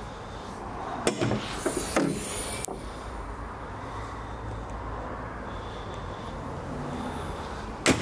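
A few sharp clicks and a brief hiss about a second in, then a single sharp knock near the end, over a steady low hum.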